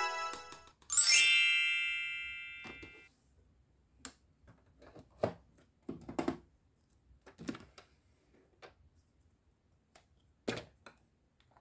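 A bright bell-like chime rings once about a second in and fades over about two seconds. It is followed by scattered light plastic clicks and knocks from the toy microwave's door being opened and a plastic toy burger being set inside.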